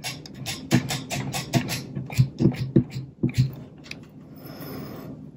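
Cotton swab scrubbed hard back and forth over the pitted metal top of a Kodak Instamatic 300 camera: a fast run of short rubbing strokes, about five a second, easing into a softer, steadier rub for the last second and a half.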